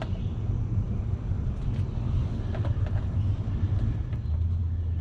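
A motor running with a steady low rumble and hum, its pitch dropping slightly about four seconds in, with a few faint ticks in the middle.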